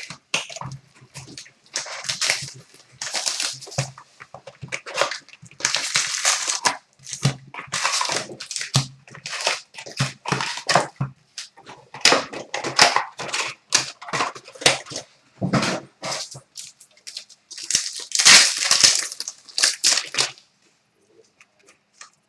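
Plastic wrapping and trading-card pack wrappers crinkling and tearing, in irregular bursts, as sealed hockey card boxes and packs are opened. It stops shortly before the end.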